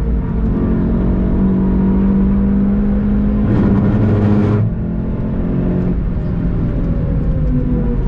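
Volkswagen Golf 7 GTI TCR's turbocharged four-cylinder engine heard onboard, pulling under acceleration, with a brief rushing noise about halfway through. It then eases off with falling pitch as the car brakes near the end.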